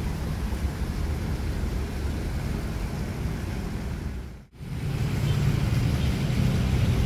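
Steady low rumble of a car driving on the road, engine and tyre noise. It cuts out for a moment about four and a half seconds in and comes back with a steadier hum.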